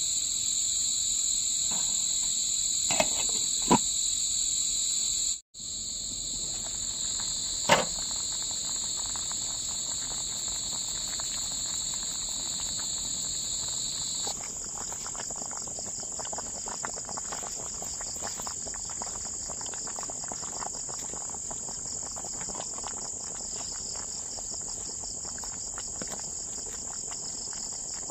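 Insects chirring steadily in two high-pitched layers; the lower layer stops about halfway through while the higher one carries on. A few light knocks sound in the first several seconds.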